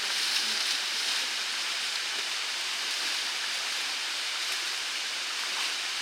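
Mountain river rushing over rocks and small waterfalls: a steady, even hiss of running water.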